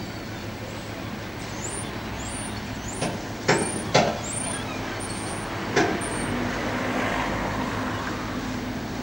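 A motor vehicle's engine running, with a steady low hum that swells about two-thirds of the way in, over a steady background hum. Four sharp knocks or clanks come between about three and six seconds in.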